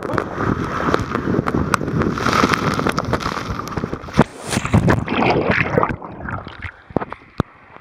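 Rushing water and wind on the microphone of a camera sliding fast down a wide water slide, then a splash into the landing pool about four seconds in. From about six seconds the sound turns muffled and quieter as the camera goes underwater among bubbles.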